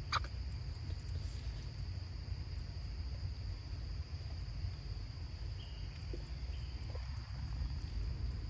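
Insects trilling steadily at one high pitch over a constant low rumble, with a single short click just after the start.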